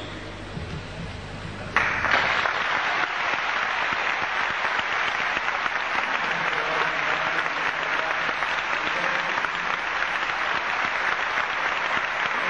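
Audience applauding, starting abruptly about two seconds in and holding steady.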